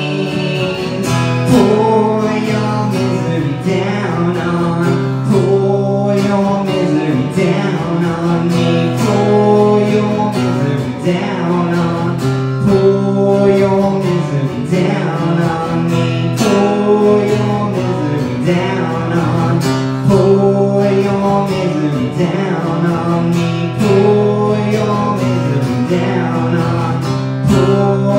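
Live guitar strumming chords in a steady rhythm, an instrumental passage of a song.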